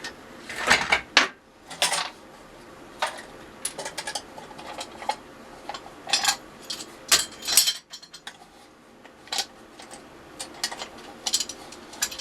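Clamps being undone and lifted off a glued-up 3 mm plywood piece: a run of irregular sharp metallic clicks, knocks and clatter, loudest about a second in and again around seven seconds.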